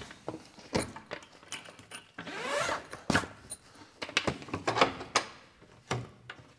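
Fittings at the back of an aluminium truck canopy being worked by hand: a string of clicks and knocks, with a brief wavering squeak about two and a half seconds in and a busier run of knocks near the end.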